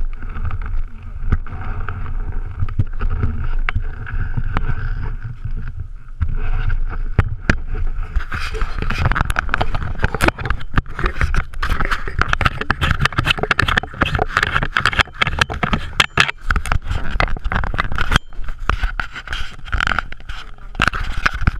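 Close handling noise of a GoPro action camera held in the hands: rubbing, scraping and knocks on the housing as it is worked onto a helmet. The noise grows much busier and louder about a third of the way in.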